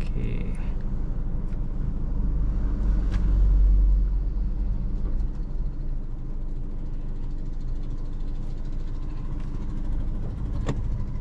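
Steady low rumble inside the cabin of a 2025 Honda Amaze, from its 1.2-litre i-VTEC four-cylinder engine, swelling briefly about three to four seconds in. A single sharp click comes near the end.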